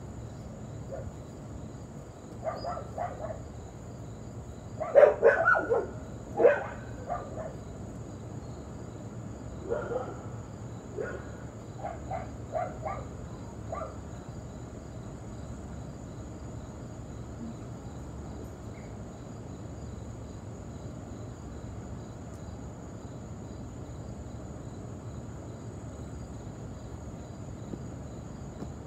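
Crickets chirring steadily in a high, even evening chorus. Between about two and fourteen seconds in comes a string of short barks, loudest around five to six and a half seconds in.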